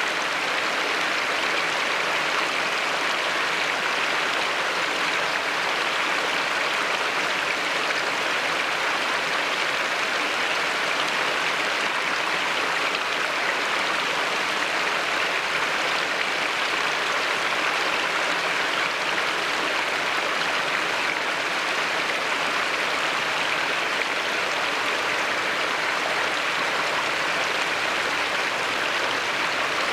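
Steady rush and splash of a small river cascade at low flow, water spilling over several scattered rock ledges with drops of two to five feet.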